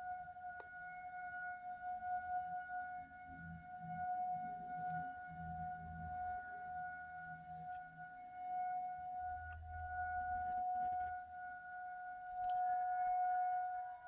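Outdoor weather warning siren sounding a single steady tone during its monthly test. The pitch does not rise or fall, and the level swells and dips a little.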